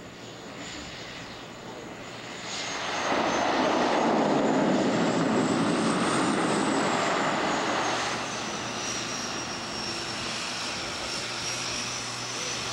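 Small propeller floatplane's engine running, swelling much louder about two and a half seconds in and then easing to a steadier, lower level, with a thin high whine that rises and then falls.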